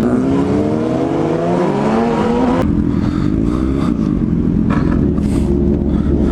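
Yamaha FZ-09 (MT-09) inline three-cylinder engine pulling under acceleration, its pitch rising steadily, then dropping suddenly about two and a half seconds in as it shifts up a gear and running on fairly steadily.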